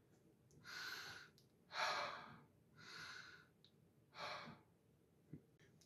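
Four soft breaths, out and in, about a second apart: a demonstration of exhaling and inhaling. No harmonica note sounds.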